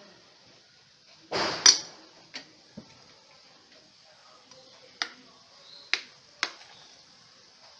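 Spoonful of flour-and-egg batter frying in hot oil in a karahi: a short loud rush of sizzle about a second and a half in, then a faint steady sizzle with a few sharp clicks scattered through.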